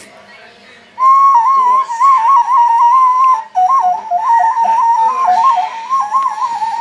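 Clay folk whistle (svistulka) blown in a long run starting about a second in: a high whistling tone that flutters up and down in quick small pitch steps, broken once briefly about halfway through.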